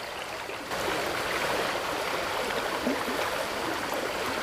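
River water flowing over a shallow riffle: a steady rushing of water that gets louder about a second in.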